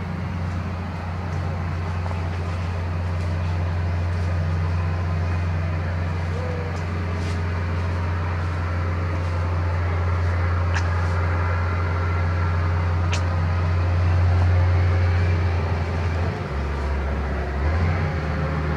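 A steady low motor drone that drops lower for about a second near the end, with a few faint sharp clicks over it.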